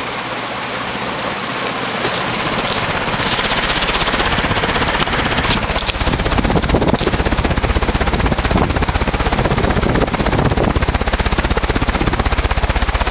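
HRS 56-inch industrial ceiling fan running on high speed: a steady rush of air from its blades, with wind buffeting in a fast, pulsing flutter that grows louder a few seconds in. A few faint ticks come in the first half.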